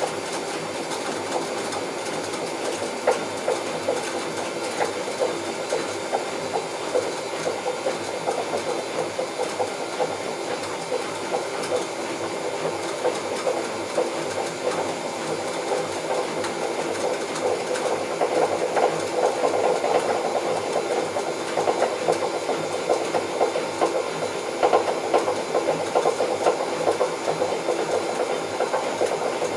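Bauknecht WA Plus 844 washing machine running, with a steady rattling grind from the drum that grows louder a little past the middle: the noise of a failed drum bearing.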